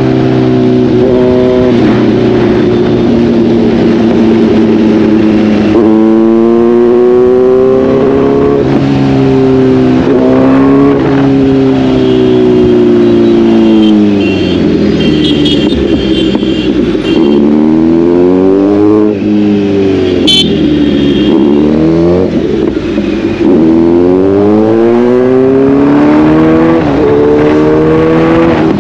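Motorcycle engine running in fifth gear at road speed, the throttle rolled off and opened again several times so the engine note falls and climbs repeatedly. Short high-pitched tones sound twice in the middle.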